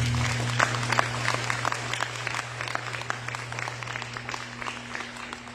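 Audience applauding with many scattered claps, dying down gradually over a steady low hum.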